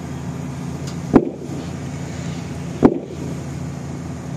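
Steady low hum of running engines, with a heavy boom about every 1.7 seconds, three in all.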